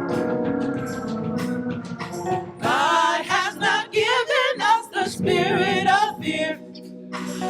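Gospel church music: a held organ chord, then singing with heavy vibrato over it from about a third of the way in.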